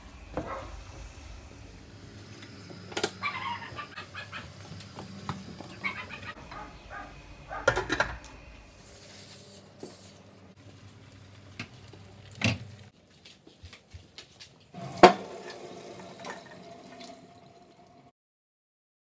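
Kitchen cooking sounds: pans and utensils knocking and clattering, with a low hum under the first part. A short hiss of cooking spray onto aluminium foil comes about halfway, and a loud metal clank comes later, as the steel pan handles the cooked broccoli at the sink.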